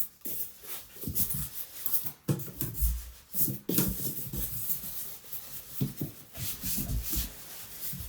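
Styrofoam packing and a cardboard box being handled: irregular rubbing and scraping with a few sharper knocks.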